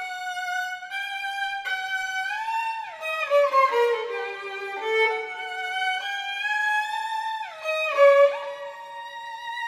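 Solo violin, bowed, playing sustained notes joined by slow slides up and down in pitch, with two notes sounding together for a couple of seconds in the middle.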